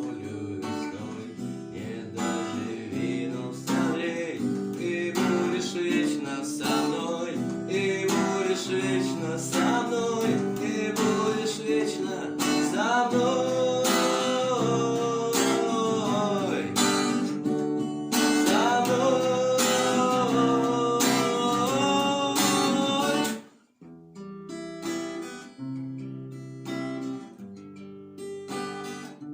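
Acoustic guitar strummed with a voice singing a song over it. About three-quarters of the way through the music cuts off suddenly, then goes on more quietly with separate picked guitar notes.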